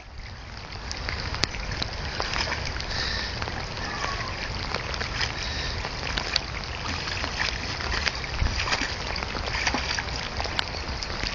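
Floodwater sloshing and trickling, with small splashes throughout, as a German Shepherd searches through it for a lost ball, over a steady low rumble.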